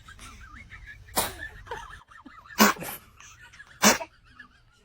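Baby sneezing three times in quick succession, about a second and a half apart, with faint wavering squeaks in between.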